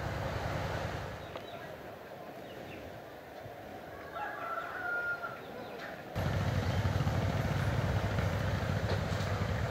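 A rooster crows once, fairly distant, about four seconds in. Around six seconds a steady low rumble sets in and continues.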